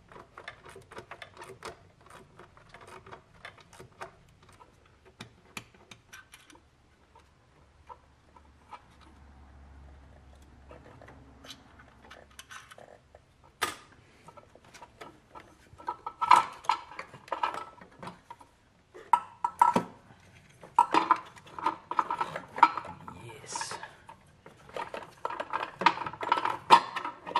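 Metal hand tools and engine parts clicking and clinking while parts are unbolted in a car's engine bay. The sound comes as scattered single clicks at first, then several bursts of rapid clicking in the second half as the throttle body is worked loose and lifted out.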